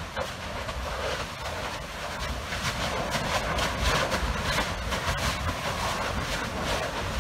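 Kīlauea fissure lava fountain erupting: a steady low rumble and roar, peppered with quick bursts and pops of spattering lava that grow denser and a little louder about two and a half seconds in.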